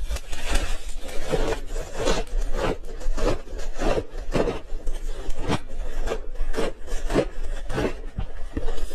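Close-miked crunching of ice being chewed, the crunches coming about twice a second.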